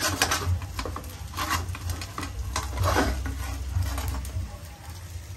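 Dried tongue sole fish frying in shallow oil in a pan, the oil sizzling, with metal tongs clicking and scraping against the pan several times as the pieces are turned. A steady low hum runs underneath.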